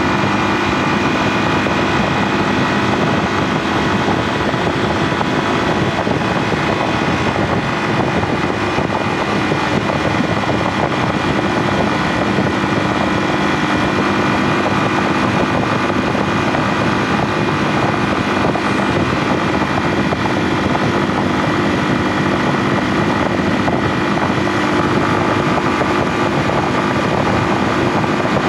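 Yamaha Serow 250's single-cylinder four-stroke engine running at a steady, even speed while riding, with an unchanging engine note over a rushing noise.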